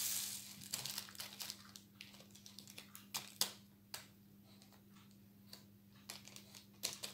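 Diamond painting drills being poured from a small zip-lock plastic bag into a plastic pill organiser compartment. The bag crinkles, loudest in the first second, and then comes a scatter of light clicks and ticks as the little drills drop into the box.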